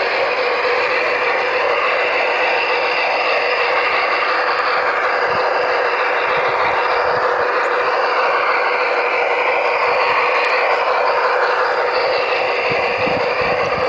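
Garden-scale model locomotive running along its track: a steady whine from its electric motor and gears over an even hiss of running noise, holding constant throughout.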